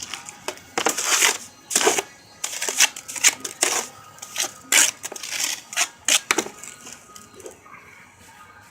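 Masonry work on stone veneer: a trowel and stone pieces scraping and clicking against mortar and each other in a quick, irregular series of short scrapes, dying down about six and a half seconds in.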